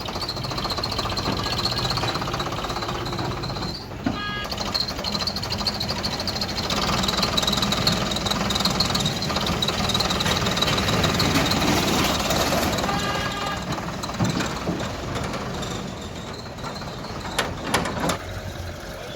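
Diesel engine of a JCB 3DX backhoe loader working under load, with a steady high whine over the engine, and a few sharp knocks near the end.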